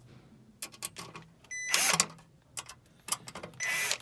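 Small metal clicks and two short whirring bursts as the mounting bracket of a car audio unit is fastened back on, typical of a small power driver running screws in.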